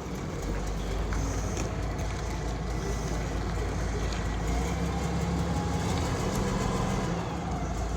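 A large vintage bus engine running steadily, a low rumble that grows a little stronger about halfway through.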